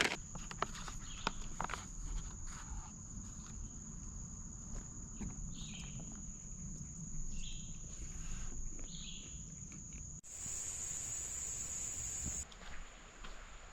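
A steady high-pitched insect drone, with footsteps and scattered light clicks and rustles underneath and a few short calls in the middle. About ten seconds in, the sound breaks off abruptly and comes back louder for about two seconds.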